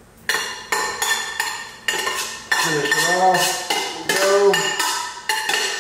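Metal spoon scraping and knocking against a stainless steel saucepan as the pasta is scraped out of it, an irregular run of sharp clanks, each ringing briefly.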